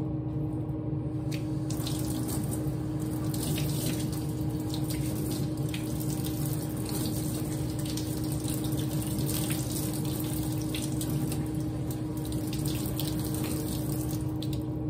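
Tap water running and splashing over an etching plate held in a stainless steel sink, rinsing the acid off the plate. A steady low hum runs underneath.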